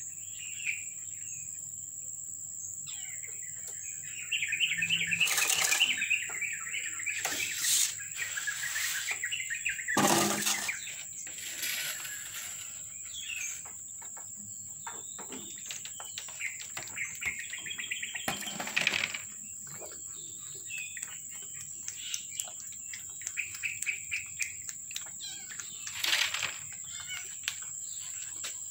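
Birds chirping and trilling in stretches over a steady high-pitched whine, with several short, sharp noises, the loudest about ten seconds in.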